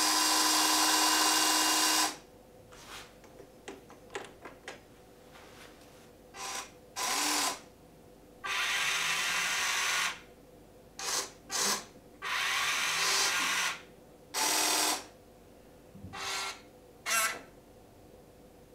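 Amewi 22501 1:14 full-metal RC excavator's electric actuator motors whining in repeated stop-start bursts as the boom, stick and grapple move, with a few light clicks between the bursts.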